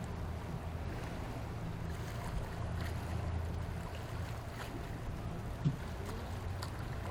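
A boat's motor running steadily with a low hum, with wind and water noise around it.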